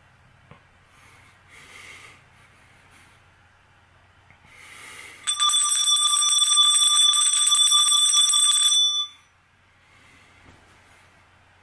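Small metal handbell shaken rapidly, ringing without a break for about three and a half seconds from about five seconds in, then stopping abruptly.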